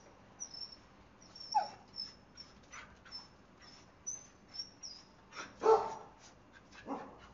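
A dog whining and giving a few short barks, the loudest about two-thirds of the way through.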